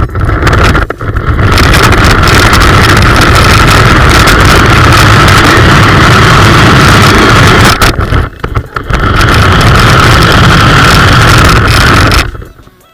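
Loud whine of a toy remote-control Hummer H1's electric motor and gearbox as it drives over rough ground, picked up by a camera mounted on the car. It stops briefly about eight seconds in, runs again, then cuts off near the end.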